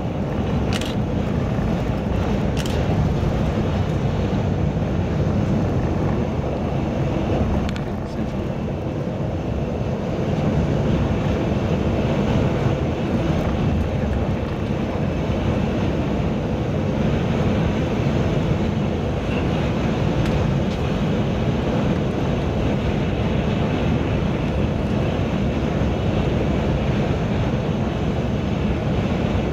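Steady road and engine noise inside a vehicle cruising on an expressway, with tyre rumble dominating. Two brief high ticks come in the first few seconds.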